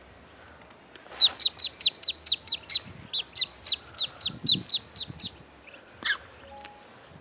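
A one-day-old duckling peeping loudly and rapidly, about four to five short high notes a second, each sliding down in pitch. The run starts about a second in and stops a little after five seconds, with one more call near the end.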